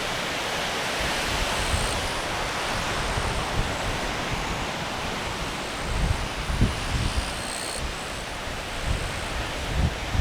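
Steady wash of ocean surf, with gusts of wind rumbling on the microphone about six seconds in and again near the end.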